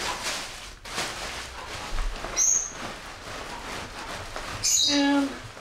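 Black plastic trash-bag liner and pack fabric crinkling and rustling as gear is pushed down into a backpack. A short high chirp sounds about halfway, and a louder, brief pitched cry near the end.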